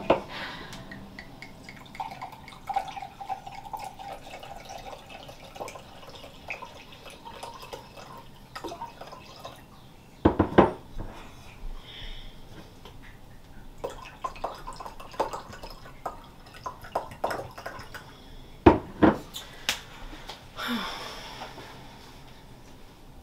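White wine poured from a bottle into a wine glass, a thin running liquid sound, with a few sharp knocks of glass on a stone countertop about halfway through and near the end.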